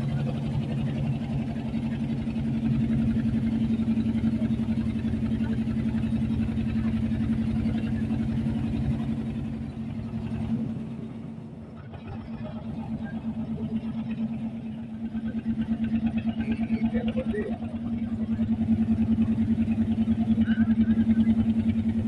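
Boat engine running steadily, a low drone with fast, even pulses; it fades briefly about halfway through, then comes back up.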